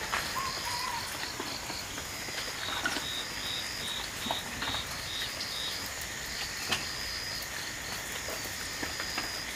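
Insects chirping in a wet, misty garden: runs of short, high chirps, several a second, over a steady high buzz, with scattered ticks of dripping water.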